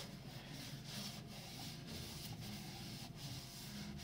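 Faint scrubbing of a blue paper shop towel wiped around the inside of a freshly honed engine cylinder bore, cleaning out honing residue until the towel comes out clean.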